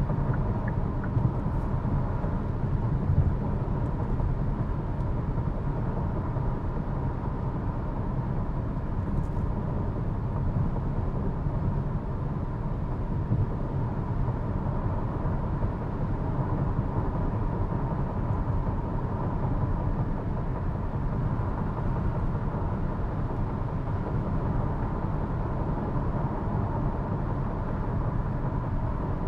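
Road and tyre noise inside the cabin of a 2023 Hyundai Kona on the move: a steady low rumble with a faint constant high hum, and a couple of light bumps early on and about halfway through.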